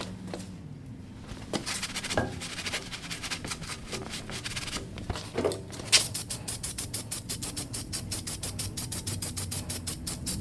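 Aerosol spray-paint can being used for touch-up on a tractor loader: a spray hiss and a few clicks, then from about six seconds in a fast, even rattle of roughly seven clicks a second.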